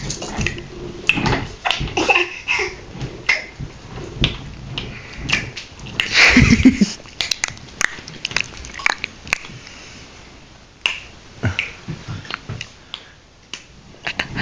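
A dog making assorted small noises: a scattered run of short clicks and scuffling sounds, with one louder, longer noise about six seconds in.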